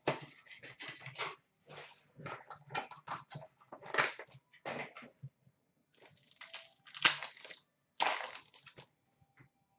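Foil wrappers of Upper Deck Credentials hockey card packs being handled and torn open, in a run of short irregular crinkles and rips, with cards rustling as they come out near the end.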